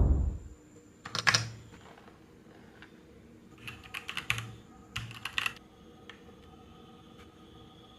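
Keys of a hot-swap mechanical keyboard being pressed in short bursts of clicks: one burst about a second in, then more around four and five seconds in. A low thump comes at the very start.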